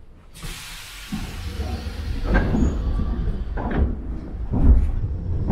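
Subway train car heard from inside: a hiss of air, then a low running rumble that builds, broken by several sharp clunks from the car.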